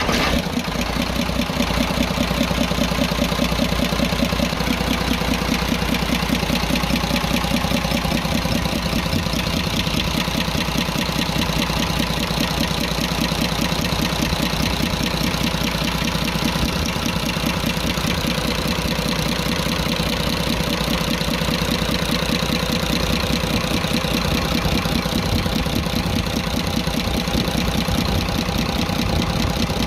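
Cummins 24-valve six-cylinder diesel idling steadily with its valve cover off, with the tick-tick noise from the valve train that the mechanic traces to the number one cylinder's rockers and suspects is wrong tappet clearance.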